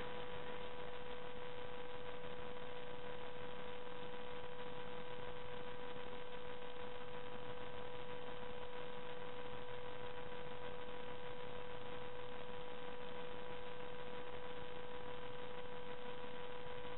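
Steady electrical hum with several constant tones over a faint even hiss, unchanging throughout; no other sound.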